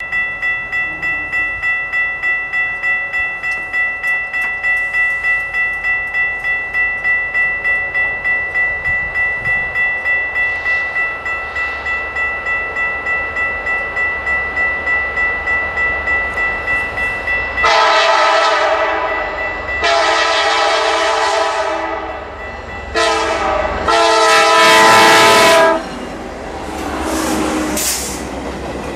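A railroad crossing bell ringing about two and a half times a second. A little past halfway the Alaska Railroad Denali Star's locomotive horn blows the grade-crossing signal: long, long, short, long. The passenger train then rolls past, its wheels clicking over the rail joints.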